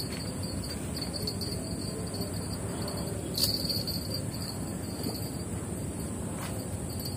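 A steady, shrill insect chorus: a high continuous trill with a lower pulsing trill beneath it, over a low rush of wind or river noise. A single sharp click sounds a little before halfway through.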